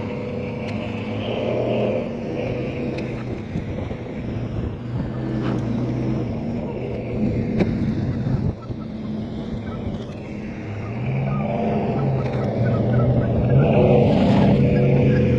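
Pickup truck engine running under way while driving through deep snow, getting louder from about eleven seconds in, with a few scattered knocks.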